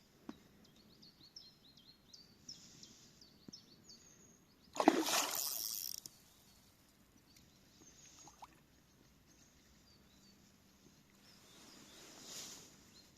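Small birds chirping rapidly, then, about five seconds in, a loud burst of water splashing lasting about a second.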